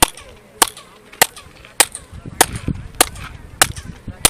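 Sharp hand claps, about one every 0.6 s, each followed by a short chirping echo thrown back by the stepped staircase of the Kukulcán pyramid, the echo said to imitate a quetzal's call.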